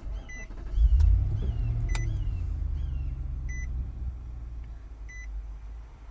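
The 2018 Nissan Armada's V8 engine starts, surges about a second in and settles toward idle. A dashboard chime beeps about every one and a half seconds, and birds chirp faintly.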